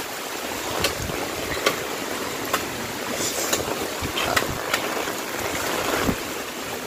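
Strong typhoon wind and rain: a steady rushing noise, with a few sharp taps scattered through.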